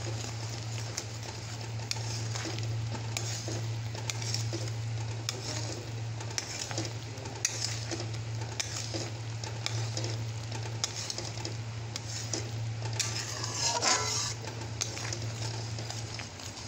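Metal spatula stirring and scraping a thick masala paste in an aluminium kadhai, the spiced paste sizzling and bubbling as it cooks, with one louder scrape near the end. A steady low hum runs underneath.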